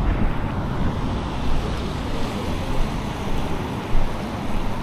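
Street traffic hissing past on wet roads, with wind rumbling on the microphone.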